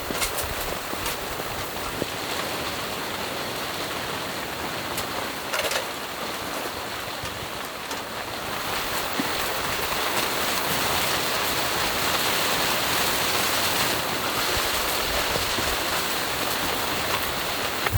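Steady hiss of wind and driving precipitation in a storm, with a few faint ticks in the first seconds, growing a little louder after about eight seconds.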